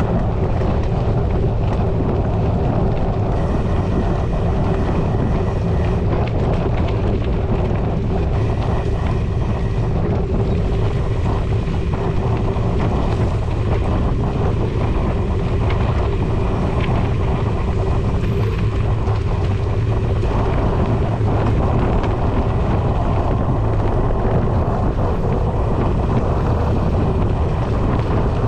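Steady wind rumble on the microphone of a camera riding on a moving mountain bike, with tyre and trail noise from riding a dirt path beneath it.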